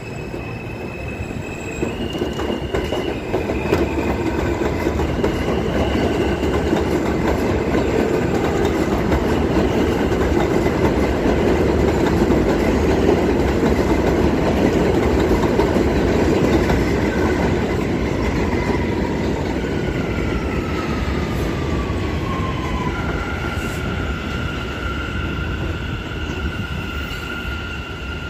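New York City subway train running on elevated track, its wheels rumbling and clattering over the rails, loudest around the middle. High-pitched wheel squeal rings over it, and late on a tone glides down and then holds steady.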